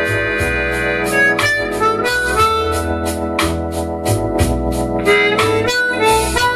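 Harmonica played blues-style, cupped in the hands, with short notes that slide in pitch, over a backing track of bass, keyboard and drums keeping a steady beat.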